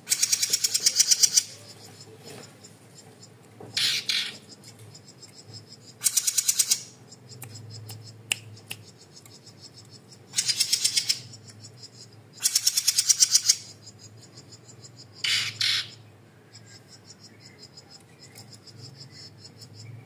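Small caged songbird giving loud, rapid rattling calls: six bursts of fast pulsed notes, each lasting half a second to a second and a half, a few seconds apart.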